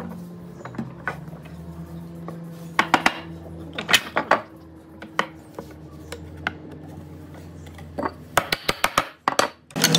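Hardwood slats and a wooden block knocking against a glued mortised rail and the workbench top as the slats are fitted into their mortises. A few sharp wood knocks come about three to four seconds in, and a quick run of them near the end.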